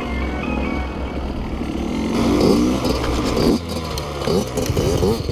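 Kawasaki KX85 two-stroke dirt bike engine revving up and down, its pitch rising and falling repeatedly. In the second half other dirt bike engines run alongside, their revs overlapping.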